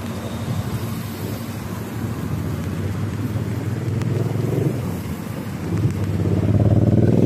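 Low rumble of wind buffeting a moving bicycle's camera microphone, mixed with road traffic. A vehicle's engine grows louder from about six seconds in.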